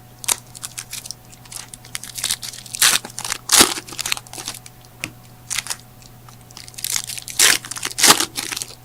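Trading-card pack wrappers being torn open and crinkled by hand, with cards shuffled and handled in irregular rustling bursts, over a faint steady low hum.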